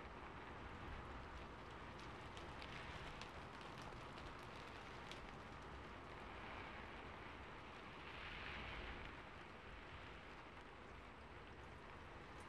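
Steady rain falling, a fairly quiet even hiss with individual drops ticking now and then; the hiss swells briefly about two-thirds of the way through.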